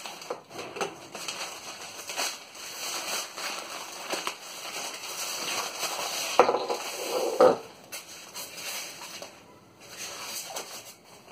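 A black plastic courier mailer being slit with a utility knife and pulled open by hand, the thin plastic crinkling and rustling, with louder crackles about halfway through as a foam box is pulled out of it.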